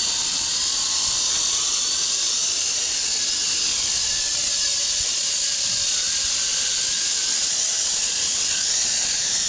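WLToys V262 quadcopter's brushed motors and propellers whining steadily at high pitch, with several tones wavering as the motors speed up and slow down against each other. One motor is failing from overheating, which leaves the craft flying lopsided.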